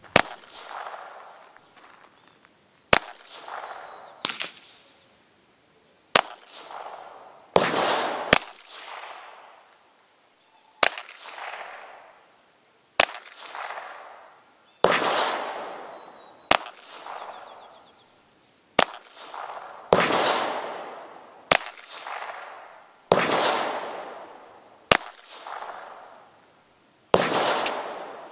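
High Standard Sport King .22 LR semi-automatic pistol with its 6-inch barrel, fired shot after shot: about fifteen sharp cracks spaced one to two and a half seconds apart, each followed by an echo that fades over about a second.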